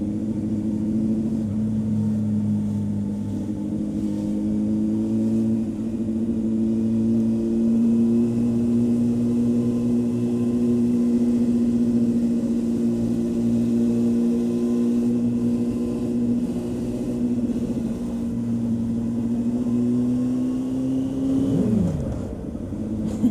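A 2000 Honda CB600F Hornet's inline-four engine at a steady cruise. Its revs creep up over the first few seconds and hold level, then fall away sharply near the end as the throttle is closed.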